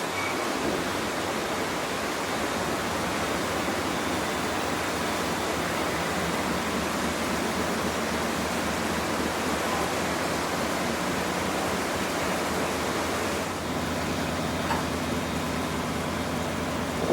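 Steady rushing of water and wind aboard a harbour ferry under way, with a low engine throb beneath.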